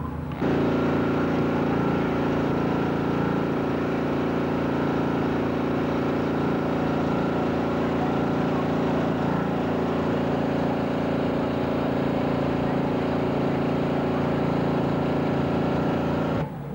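Vehicle engine running at a steady, unchanging pitch. It cuts in abruptly about half a second in and cuts off abruptly near the end.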